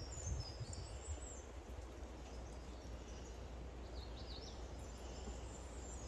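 Quiet outdoor ambience: faint, short high bird chirps over a steady low rumble, with a few soft thumps in the first second or so.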